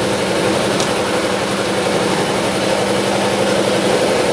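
Steady drone of a running motor, an even hum with no change in level or pitch.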